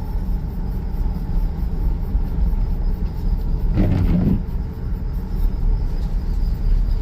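Steady low engine and road rumble inside the cabin of a 2002 Chevrolet Tahoe on the move, its engine running without a misfire. A brief louder sound comes about four seconds in.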